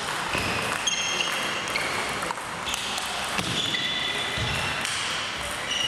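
Table tennis balls clicking off bats and tables during rallies at several tables at once: an irregular run of sharp clicks.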